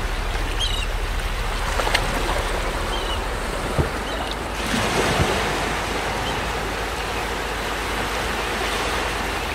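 Small waves washing onto a sandy beach: a steady rush of surf, with a few faint short chirps in the first half.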